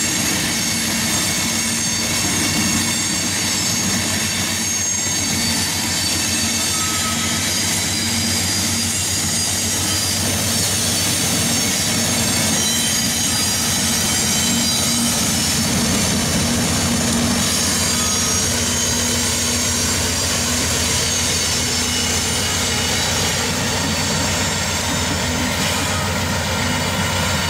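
Freight train rolling past at a grade crossing: covered hopper cars running over the rails with steady wheel squeal and clatter. About halfway through, a Union Pacific diesel locomotive near the rear of the train passes, and its low engine drone carries on to the end.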